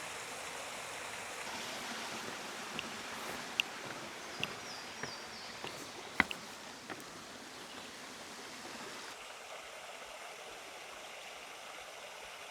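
Steady rush of a small stream flowing, with a handful of short, sharp ticks a few seconds in.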